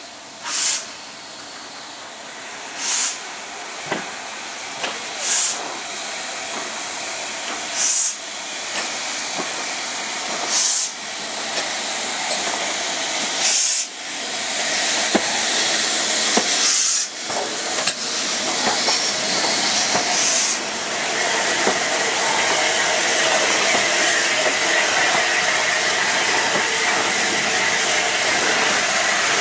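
Steam locomotive No. 6201 Princess Elizabeth, an LMS Princess Royal class four-cylinder Pacific, moving slowly with steam hissing in sharp blasts about every two to three seconds. After about twenty seconds this gives way to a steady, louder hiss.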